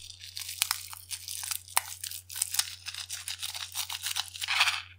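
Small rubber balloon being cut open with small scissors and its red glitter squeezed out into a glass bowl: irregular crackling clicks and rustling, with a louder rustle near the end.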